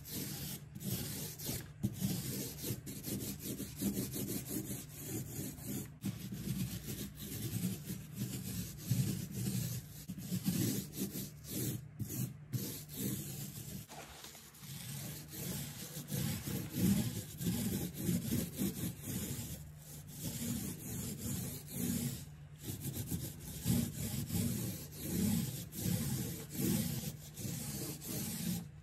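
Small paint roller rolling wet paint onto a kitchen island's cabinet panel: a continuous rubbing that swells and fades with each up-and-down stroke, about once a second.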